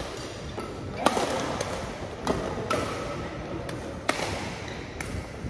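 Badminton rackets striking a shuttlecock during a rally: about half a dozen sharp, irregular hits, the loudest about a second in, echoing in a large hall.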